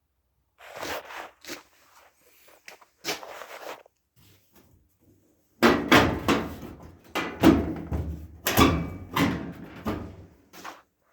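Sheet-metal panels of a GE dryer being handled during teardown: a few light knocks, then, about halfway in, a run of loud clunks and rattles lasting about five seconds.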